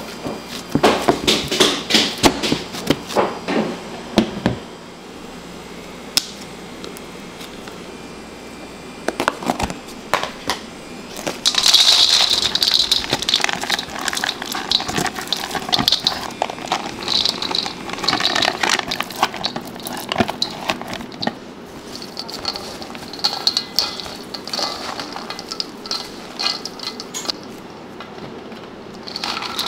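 Bakery kitchen handling sounds: a quick run of knocks and clicks for the first few seconds, then quieter, irregular repeated strokes of rubbing or scraping.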